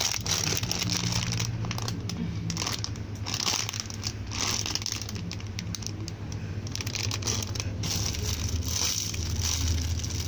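Clear plastic packaging of squishy toys crinkling and crackling irregularly as the bagged toys are picked up and handled, over a steady low hum.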